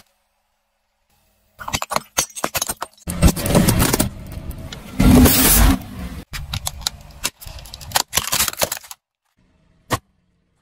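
A car tyre slowly crushing things on pavement: crackling and crunching of candy-coated chocolates under the tread, with loud bursts about 3 and 5 seconds in as a milk drink pouch splits. More crackling follows until a single short click near the end.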